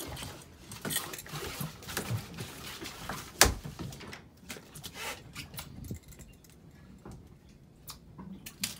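Scattered clicks and knocks of a shark and its wire leader being handled on a boat deck, with one sharp knock about three and a half seconds in.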